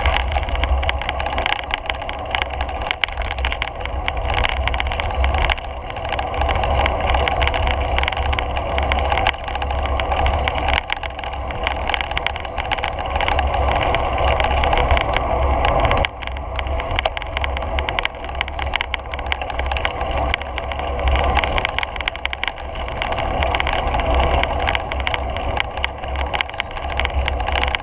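Steady wind buffeting and rolling rumble from a camera travelling along a paved path, with a brief dip about sixteen seconds in.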